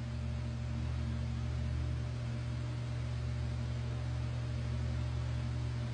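Engine oil trickling from a jug through a plastic funnel into a small diesel engine's crankcase, under a steady low hum and hiss.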